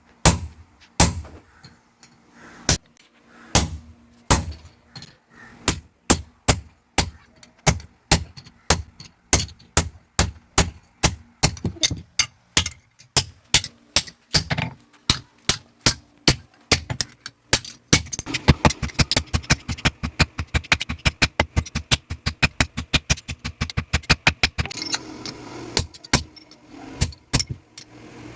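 A blacksmith's hammer striking metal on an anvil while forging an axe head, in a steady rhythm of ringing blows, then a fast run of lighter, quicker strikes for several seconds near the end.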